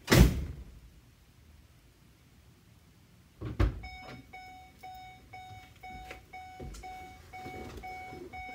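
A cargo van door shuts with a heavy thud, then about three and a half seconds in a knock is followed by the van's warning chime, an evenly repeated beep at about two and a half beeps a second.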